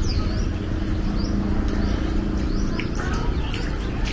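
Small birds chirping, short high calls repeated about twice a second, over a steady low rumble.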